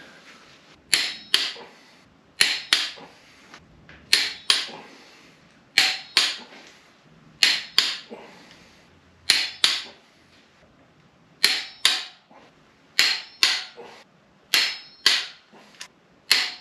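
Snap-on click-type torque wrench clicking as it reaches 80 ft-lb on LS1 cylinder head bolts, the final torque pass. The clicks come in sharp pairs, one pair about every second and a half, about nine pairs as the wrench moves from bolt to bolt.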